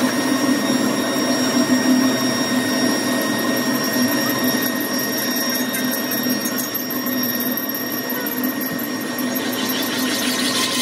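Pillar drill press running, its bit drilling through a jig into a truck brake drum: a steady motor and spindle hum with several constant tones, and a fast fine ticking joining in high up about halfway through.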